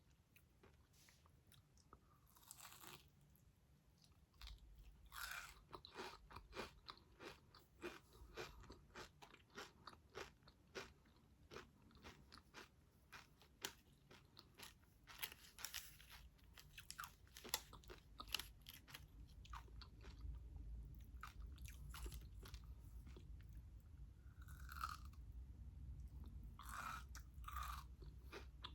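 Faint, close-up chewing of a Dubai chocolate mochi cookie filled with pistachio cream and crunchy kataifi: many small, irregular crunches and mouth clicks.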